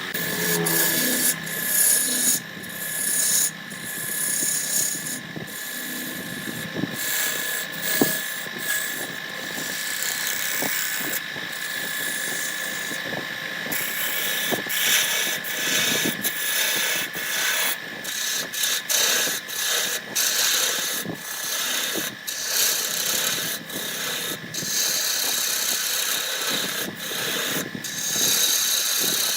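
Wood lathe running with a steady whine while a cutting tool scrapes and shaves the spinning wood, the cutting noise breaking off and resuming many times as the tool is lifted and put back.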